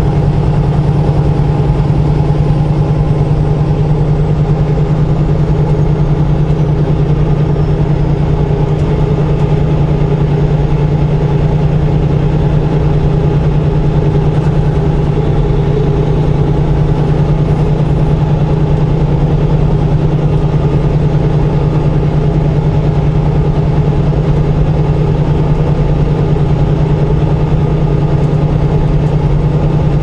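Semi truck's diesel engine running steadily at highway speed, heard from inside the cab: a strong, even low hum with road noise and no change in pitch.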